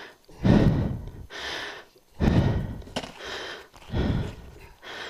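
A person panting heavily close to the microphone, out of breath: three breaths, each a loud low puff of air followed by a hissing draw of breath.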